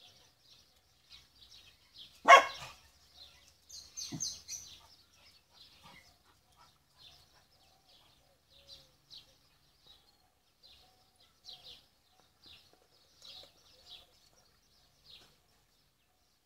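Small birds chirping in short high notes every half second to second. About two seconds in there is one loud, short animal call, and a smaller one follows near four seconds.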